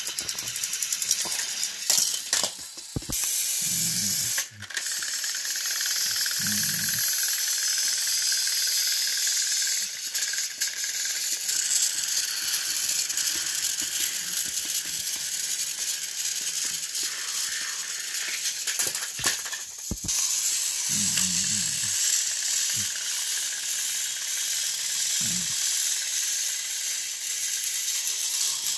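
Battery-powered toy train motors whirring steadily as the coupled engines run along plastic track, with a high-pitched hiss and rattle. A few clicks and brief low knocks come in now and then.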